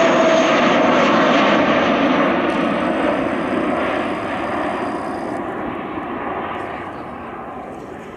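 Airbus A320's twin jet engines at climb thrust just after takeoff, the jet noise fading steadily as the airliner draws away, with a steady humming tone in the first couple of seconds.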